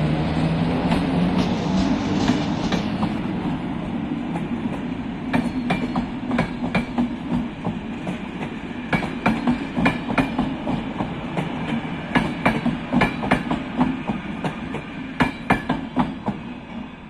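MÁV class V43 electric locomotive and its intercity coaches passing close by: a steady rumble with a motor hum at first, then the wheels clicking over rail joints in quick pairs as the coaches go past, fading near the end.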